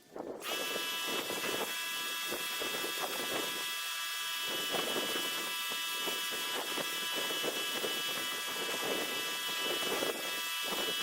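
Electric pressure washer, just over 2,000 psi, coming on about half a second in: a steady motor whine over the loud hiss of high-pressure water spraying through a 15-inch surface cleaner on concrete.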